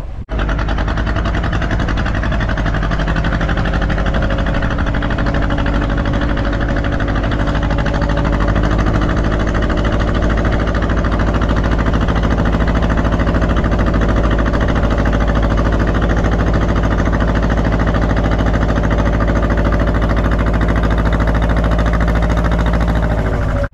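Fishing boat's inboard engine running steadily and loud, an even engine drone that gets slightly louder about eight seconds in. It cuts in and cuts off abruptly.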